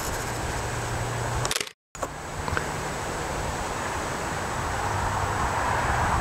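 Steady outdoor background noise with some low rumble, picked up by a camera's built-in microphone, cutting out to silence briefly just under two seconds in.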